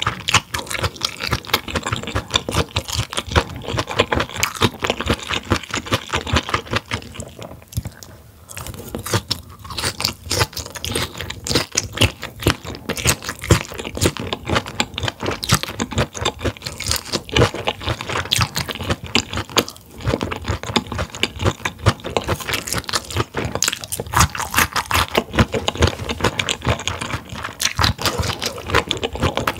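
Close-miked chewing of grilled mullet gizzard, a firm, chewy organ, giving dense, irregular crunchy and wet mouth clicks, with brief lulls about eight and twenty seconds in.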